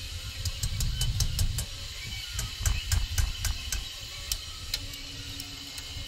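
Runs of sharp, irregular clicks, several a second, about half a second in and again near the middle, over an uneven low rumble.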